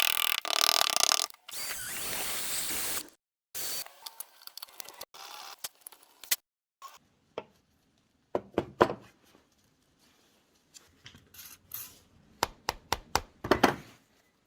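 Workshop tool sounds: a power tool running for about the first three seconds with brief breaks, then scattered separate knocks and clicks of handwork, bunched more closely near the end.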